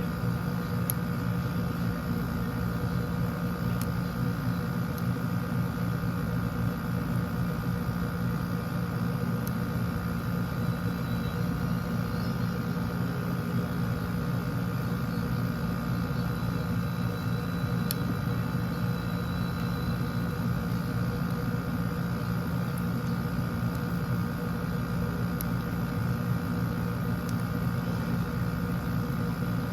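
Steady machine hum throughout, with a few faint, scattered ticks from a lock pick and tension wrench working the pins of an American 1100 series padlock.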